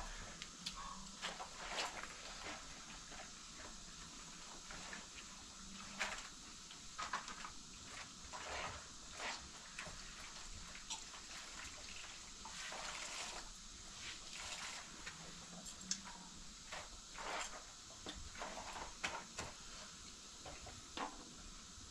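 Hands washing and scrubbing in a plastic basin of water, with irregular small splashes and rubbing sounds.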